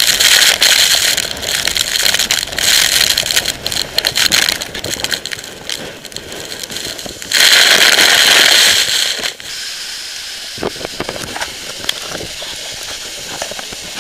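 Storm waves breaking over a Baltic Sea pier, with wind-driven spray lashing the camera as a loud rushing hiss. The hiss surges again from about seven to nine seconds in, then drops suddenly to a softer steady rush with crackling water droplets on the microphone.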